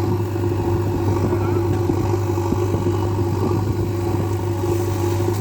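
Steady engine drone with a low hum and a steadier higher tone above it, running at an even pitch without revving.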